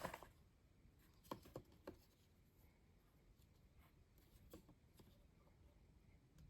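Near silence, with a few faint taps and rustles of hands handling trading-card packs and their cardboard box, three close together about a second in and a couple more later.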